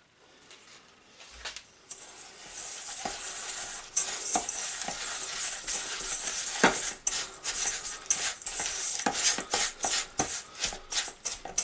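A spatula stirring melted butter into crushed digestive biscuit crumbs in a stainless steel bowl. The mixing starts about two seconds in as a steady crackly hiss, then grows busier from about four seconds in, with repeated scrapes and clicks of the spatula against the metal bowl.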